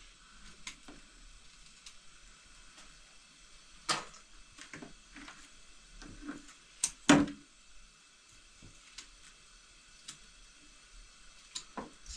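A few scattered knocks and clicks over a low background, the loudest a sharp knock about seven seconds in and another about four seconds in.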